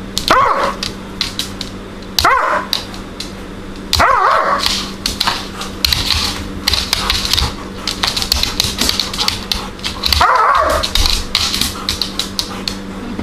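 Doberman's claws clicking and skittering on a laminate floor as he scrambles and slides after a laser dot. The dog gives short high cries four times, three in the first few seconds and one more near the end.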